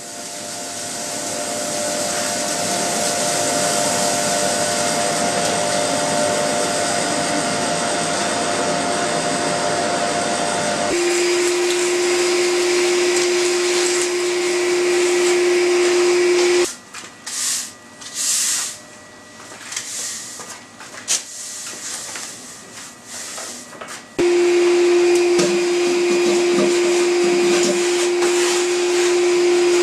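Vacuum cleaner running with a steady rushing sound that changes to a steady hum about ten seconds in. Midway it falls away for several seconds to uneven gusts of suction, then comes back at full strength.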